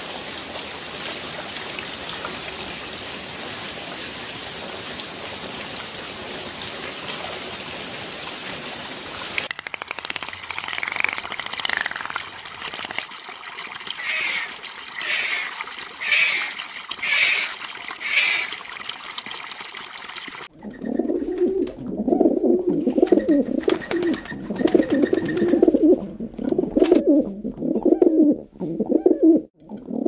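A steady hiss of falling water for the first nine seconds or so, then a bird's short high chirping calls repeating about once a second, then, from about twenty seconds in, louder low cooing calls repeated in quick phrases.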